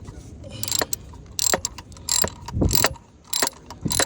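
Ratchet socket wrench clicking in short bursts as the EGR valve's bolts are turned with an 8 mm socket, with a duller knock of metal handling about two and a half seconds in.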